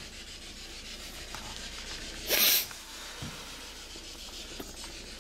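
A single short rubbing rustle, under half a second long, a little over two seconds in, over faint steady room hiss.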